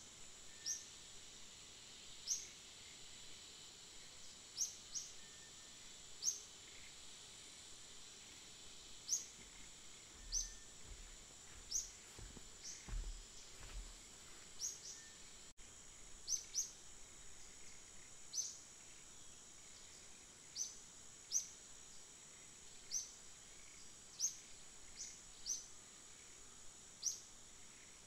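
Outdoor ambience: a steady high-pitched insect drone, with short sharp high chirps repeating every second or two. A brief low rumble comes about halfway through.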